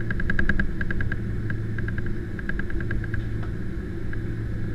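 Steady low rumble of a Boeing 767's engines and cabin while the airliner taxis at low power. Over it come several short runs of quick light ticking or rattling, about ten ticks a second, mostly in the first three seconds.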